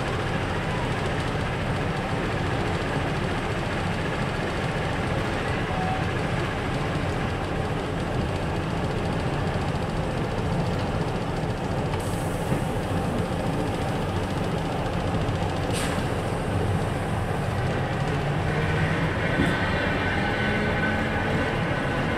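Small DB class V 36 diesel shunting locomotive running with a steady engine rumble. A short click comes about 16 s in, and a high squeal joins near the end.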